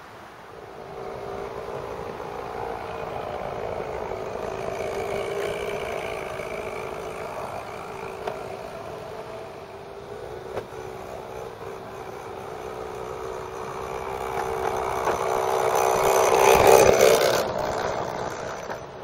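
Battery-powered model railbus running along garden-railway track: a steady electric-motor whine with gear and wheel noise, loudest about three-quarters of the way through as it passes close, then fading. A couple of sharp clicks near the middle.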